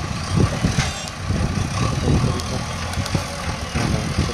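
JCB 3DX backhoe loader's diesel engine running with a low, throbbing sound, with a few short metallic knocks scattered through.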